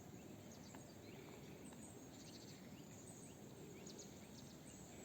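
Near silence of a still winter pine forest, with faint, distant bird chirps now and then.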